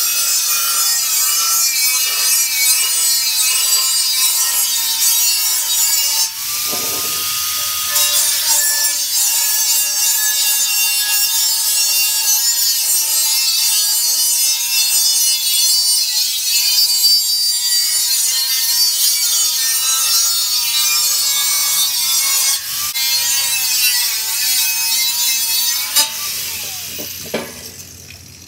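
Angle grinder cutting through the top of a stainless steel beer keg, its whine dipping and recovering as the disc bites the metal. About six seconds in it briefly spins free at a steady pitch before going back into the cut, and near the end it winds down.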